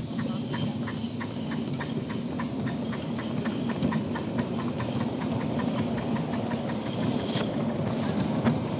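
Ride-on miniature live-steam train running along its track: a steady rumble of the wheels on the rails with a quick, even clicking of about four beats a second.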